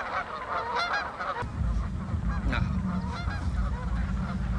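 Geese honking, many overlapping calls at once, with a low rumble coming in about a second and a half in.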